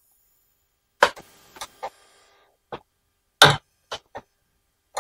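About seven short metallic clicks and clinks at uneven intervals, starting about a second in, as a flat stamped steel wrench is fitted onto and turned on a nylon-insert lock nut. The loudest click comes a little past the middle.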